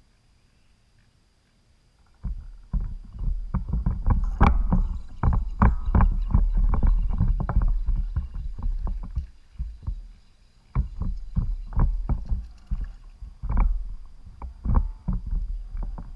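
Kayak on the water: irregular knocks and splashes against the hull over a low rumble, starting about two seconds in, with a short lull near the middle.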